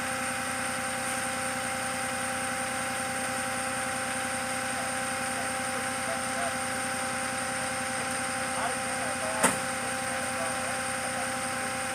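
Flatbed tow truck running steadily at idle, a constant hum with fixed tones. There is a single sharp click about nine and a half seconds in, and faint voices in the background.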